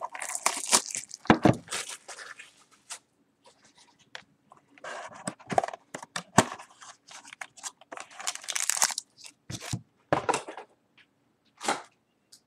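Plastic shrink-wrap being torn and crinkled off a sealed box of trading cards, with the cardboard box handled: irregular tearing and crackling noises broken by sharp clicks and short pauses.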